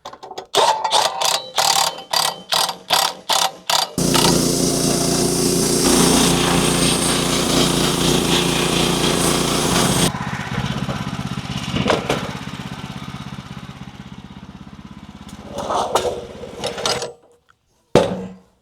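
A run of quick, regular knocking strokes for about three seconds, then an engine catches and runs steadily at a loud level. About ten seconds in it is cut back sharply and winds down over several seconds.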